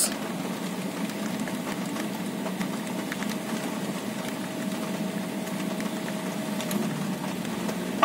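Steady mechanical hum inside a car cabin, with a thin steady tone that fades out about seven seconds in. A few faint clicks come from the keys of a Nokia 2300 mobile phone as they are pressed.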